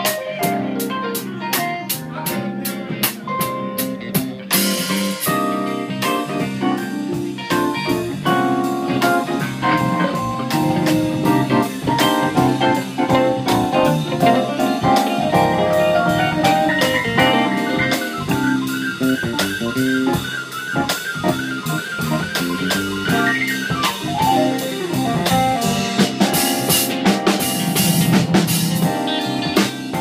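Live band playing instrumentally: electric guitar, bass guitar, drum kit and keyboard, with steady cymbal strikes. Midway through, one instrument plays a quickly repeated high note for about five seconds.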